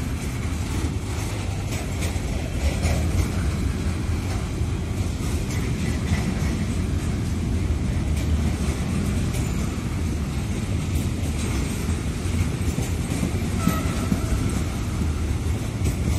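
Freight wagons of an intermodal train, loaded with shipping containers and tank containers, rolling past on the track. A steady low rumble runs throughout, with scattered sharp clicks and clatter from the wheels.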